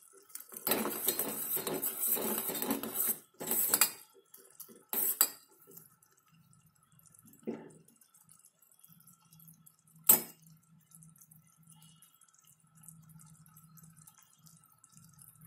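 Steel spoon stirring and scraping in a steel saucepan of boiling sugar syrup for a few seconds, with a few scattered knocks. About ten seconds in there is one sharp clink of the spoon against the pot, then only a faint low hum.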